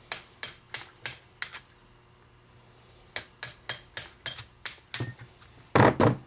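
Sharp metal-on-metal taps, about three a second, in two runs with a pause between and two louder knocks near the end: a steel punch being worked free where it is stuck in the rivet hole of a Ford tractor leveling-box crank and gear.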